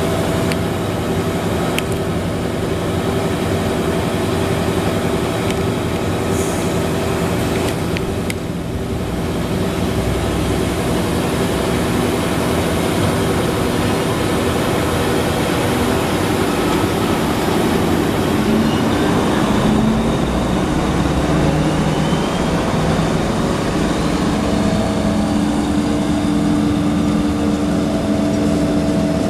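Diesel locomotive hauling a passenger train away from a station, its engine running with a steady hum. About two-thirds of the way through, the engine note rises as the locomotive works harder.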